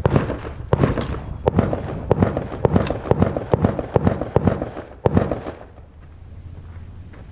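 A rapid string of semi-automatic gunshots, about three a second, with some shots close together, ending about five and a half seconds in.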